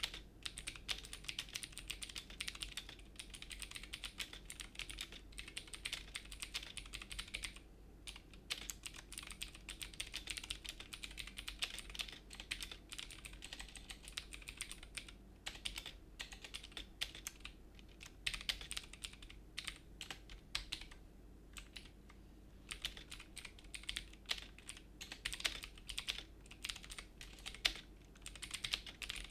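Steady fast typing on a mechanical keyboard with clicky blue switches: a dense run of sharp key clicks with a few brief pauses, picked up by a Trust GXT 232 Mantis microphone.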